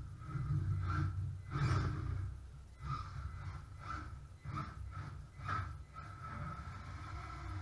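WLtoys A979 RC monster truck's small electric motor and gears whining in repeated short throttle bursts, settling into a steadier run near the end.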